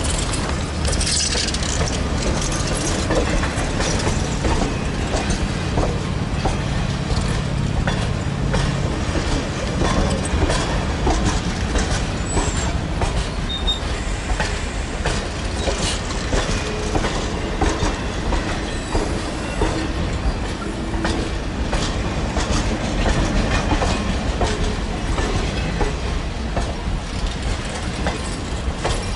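Train rolling on the rails: a steady rumble with many wheel clicks and clatter, and a low engine hum through roughly the first third.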